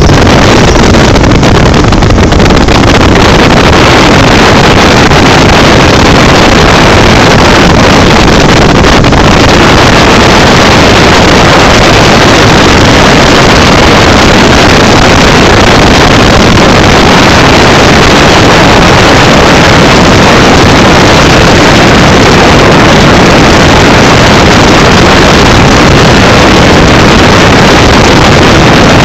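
Loud, unbroken rush of wind buffeting the microphone of a moving motorcycle, mixed with the motorcycle's engine and road noise.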